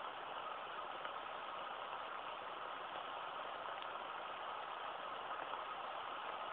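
Steady background hiss with a faint high hum running under it, unchanging, with no distinct knocks or cuts.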